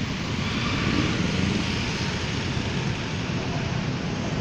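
BTS Skytrain running along the elevated viaduct, a steady rushing rumble over the hum of road traffic, swelling slightly about a second in.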